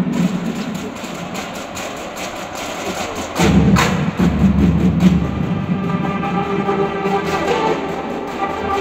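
Marching band music: a percussion passage of quick clicks, a loud low drum swell about three and a half seconds in, then held pitched chords building over the second half.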